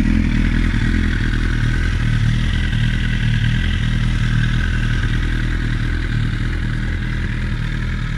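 2015 Suzuki GSX-R 1000's inline-four engine idling steadily through an Akrapovič exhaust.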